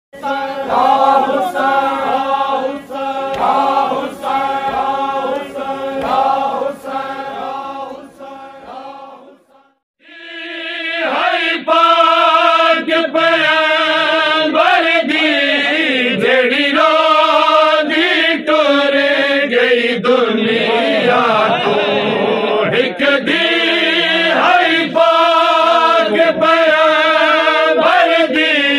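Men chanting a noha, a Shia lament, together in unison. A first chanted passage fades out at about nine seconds; after a brief gap a louder group chant starts and carries on.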